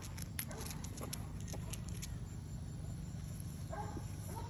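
A person and a basset hound walking on a sidewalk: irregular light clicks and steps over a steady low rumble.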